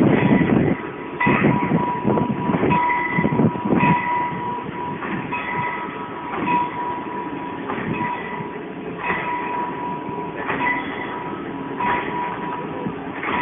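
Railway turntable swinging a small steam locomotive round: uneven clanking and rumbling, with a high steady tone that comes and goes.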